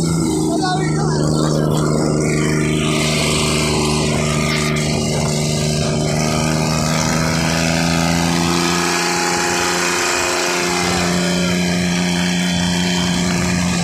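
Motorcycle engine running at a steady cruising speed, one even drone, with road and wind noise over it, heard from the rider's seat.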